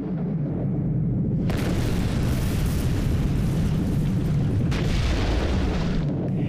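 Explosive blasting: a deep, continuous rumble, with a loud crash of noise surging in about a second and a half in and a second surge near five seconds.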